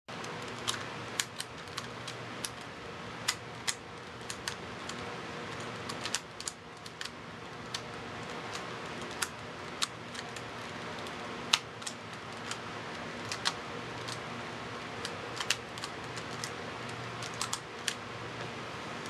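Small irregular plastic clicks and taps from a 2x2 puzzle cube being handled and turned over in the hands, over a steady low hum of room noise.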